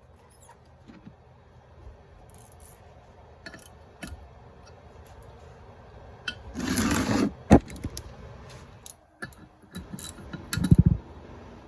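Metal tools knocking and clicking against a cylinder head, with one harsh noisy burst of about a second a little past the middle and a cluster of heavy thuds near the end.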